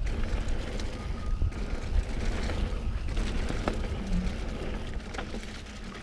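Mountain bike descending a leaf-covered dirt trail at speed: a dense low rumble of wind and tyres, with scattered clicks and rattles from the bike. Under it runs a steady vibrating hum from the camera gimbal.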